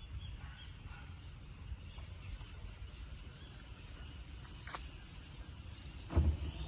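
Boat outboard motor idling low as a steady faint rumble, with insects chirring steadily in the background. A thump near the end.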